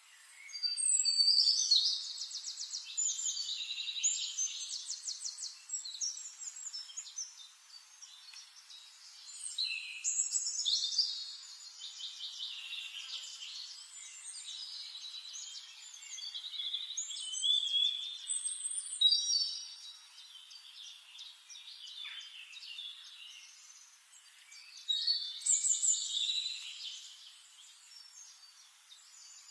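Forest songbirds singing: bursts of high, rapid trilling song come every few seconds, the loudest about a second in and again near the middle and toward the end, over a faint background hiss.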